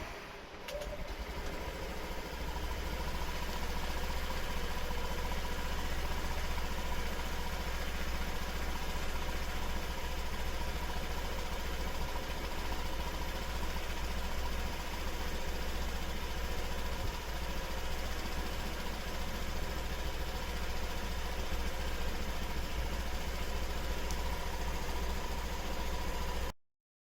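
Honda PCX scooter's single-cylinder engine idling steadily. It cuts off abruptly near the end.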